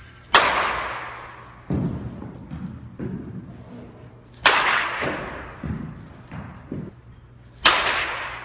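Bat hitting a baseball three times, a few seconds apart; each sharp crack dies away over about a second. Softer thuds follow each hit as the ball lands in the cage.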